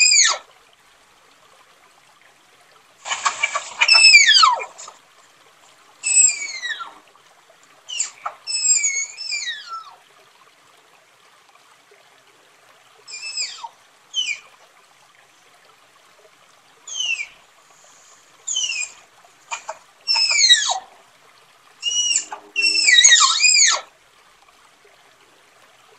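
Tapir calling: a series of high-pitched whistled squeals, each sliding steeply downward in pitch, given in short clusters with pauses of a few seconds between them.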